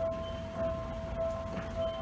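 Japanese level-crossing alarm bell ringing in an even, steady rhythm, a little under twice a second, over a low rumble.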